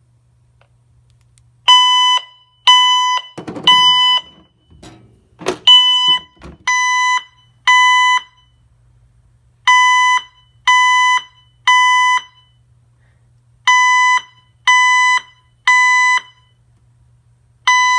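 Honeywell L5100 security system sounding a loud alarm: beeps of about half a second, once a second, in groups of three with a pause after each group, the temporal-three pattern. A few knocks and handling noises come a few seconds in.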